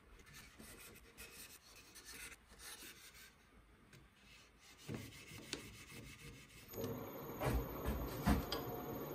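An abrasive pad rubbing and scraping by hand against the twisted stem of an apple-burl wood goblet, in uneven strokes. A few short knocks come near the end.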